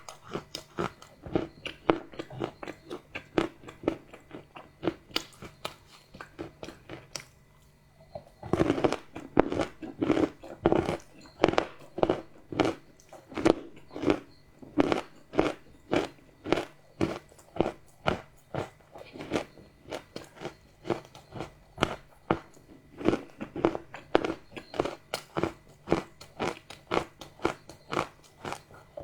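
Close-miked chewing of crunchy chocolate, a rapid run of crisp crunches at a few per second. It goes quieter for a couple of seconds a little before the middle, then a loud bite sets off another stretch of steady crunching.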